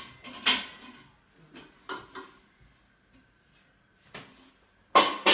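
A few sharp knocks and clatters of kitchen things being handled, the loudest near the end.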